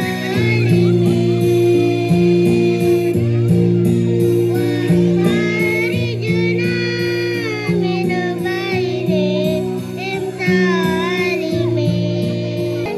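A child singing a song over backing music with held bass notes; the voice wavers with vibrato on long notes.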